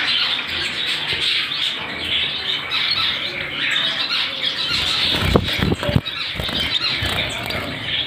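Many caged pet birds in a breeding room, parrots such as lovebirds and budgies along with finches, chattering and squawking continuously in a dense din. A few sharp knocks come about five to six seconds in.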